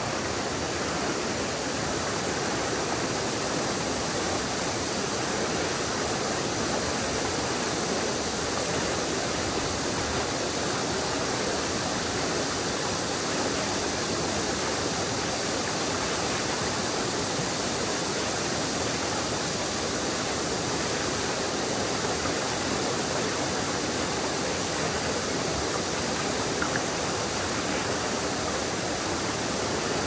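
A rough river rushing steadily, an even noise of flowing water with no change in level.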